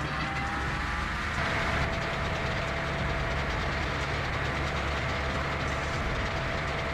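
Eastonmade 48C hydraulic firewood processor running: a steady engine drone with a thin, even whine over it.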